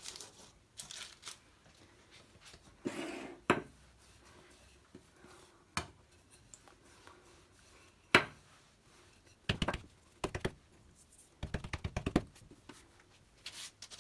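Wooden rolling pin knocking and rolling on a granite countertop as a ball of soft bread dough is flattened. There are scattered sharp knocks, the loudest about eight seconds in, and a quick run of clicks near twelve seconds in.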